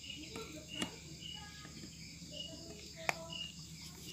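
Faint, short high chirps of a cricket repeating about once a second, with two light clicks from handling wire on a circuit board.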